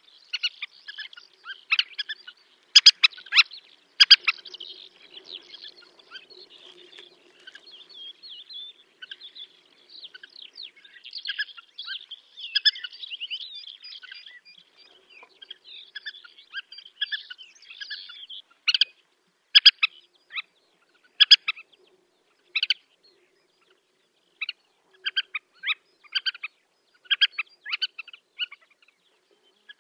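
Black-winged pratincole calling in flight: short, sharp, repeated notes, running into a denser chattering through the middle, then single calls spaced about a second apart near the end.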